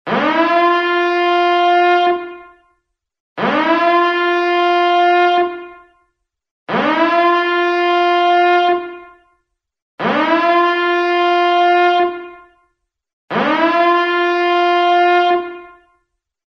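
Countdown timer's end-of-time alarm horn: five long, loud blasts about three seconds apart, each scooping up in pitch at the start and then holding one low, buzzy note, signalling that the time has run out.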